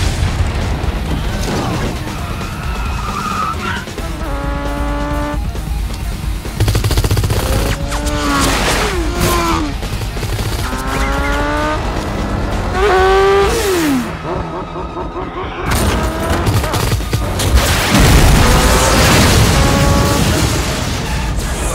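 Action-film soundtrack: a music score mixed with bursts of automatic gunfire, a car's engine and tyres, and explosions, with the loudest blast near the end.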